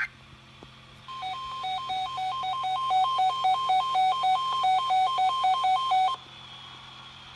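Emergency Alert System alert tone: an electronic tone flipping quickly back and forth between two pitches for about five seconds. It starts about a second in and cuts off suddenly, leaving a low hum.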